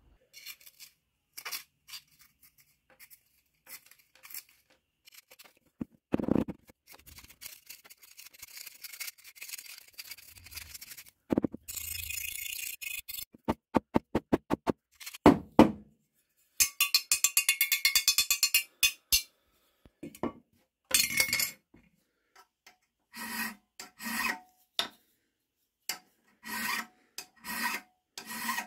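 Metal scraping and a quick run of light taps as corroded debris is worked out of a steel bayonet scabbard. In the last third, a hand file rasps on the scabbard's steel tip in a vise, in regular separate strokes.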